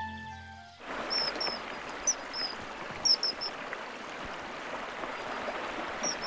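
Stream running, with a small bird calling in short high chirps, a quick run of them in the first half and one more near the end. The last notes of soft music end just under a second in.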